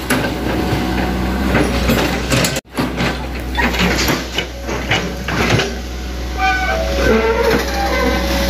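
Hitachi ZX100 hydraulic excavator at work: its diesel engine runs steadily under repeated metallic clanks and knocks. The sound cuts out for an instant about a third of the way through.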